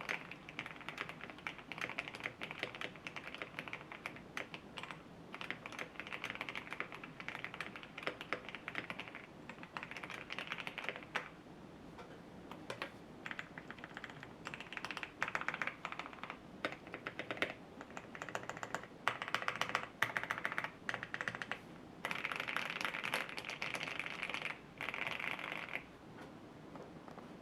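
Typing on a custom TKC Portico mechanical keyboard with lubed, filmed Alpaca v2 linear switches, ePBT ABS doubleshot keycaps, a tape mod and PE foam: fast runs of keystrokes broken by short pauses. There is a thinner spell about eleven seconds in, and a dense burst of typing near the end.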